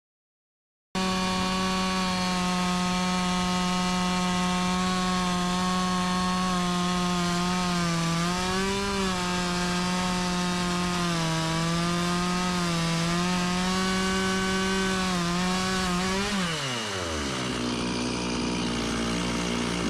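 Two-stroke Stihl chainsaw in a Granberg Alaskan chainsaw mill running at full throttle as its chain rips lengthwise through a log, its engine note dipping a little as the cut loads it. It starts abruptly about a second in, and near the end the throttle is released and the engine falls to idle.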